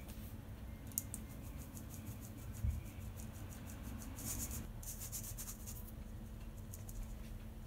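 Wire-mesh sieve shaken and tapped over a glass bowl to sift flour and cocoa: a run of quick, light, scratchy ticks with a soft knock, busiest about halfway through.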